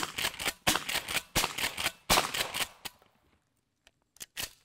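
Shotgun firing Pepper Blast pepper-spray less-lethal shells: four shots in quick succession, about three-quarters of a second apart, each dying away. A few light clicks follow near the end.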